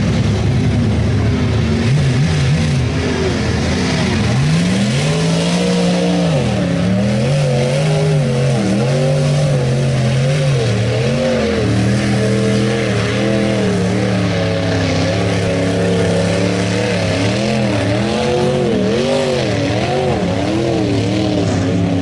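Lifted 1950s Ford pickup's engine revving hard through a mud pit, its pitch swinging up and down again and again, over a steady hiss of spinning tyres flinging mud.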